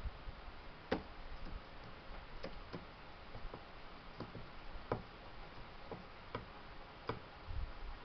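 Sharp, light clicks or taps at irregular intervals, about nine in all, the strongest about a second in, over a faint steady hiss.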